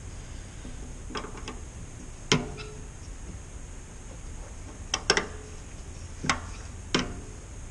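A handful of short, sharp metallic clinks and taps, irregularly spaced, from hand tools working on the metal clamp hardware that holds the tractor's fuel tank.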